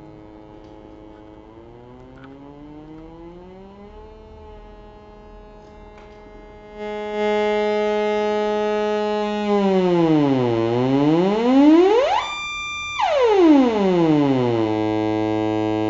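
Homemade analog drone oscillator sounding a single pitched drone on its Mylar-capacitor channel, its pitch swept by hand on a knob. It glides up in the first seconds, gets louder about seven seconds in, then swoops down, shoots up to a brief high tone and falls back to a low steady drone.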